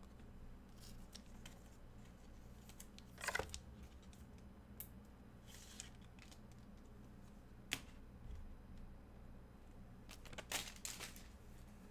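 Trading cards and their packaging being handled: a few faint swishes and slides, with one sharp click about eight seconds in, over a low steady hum.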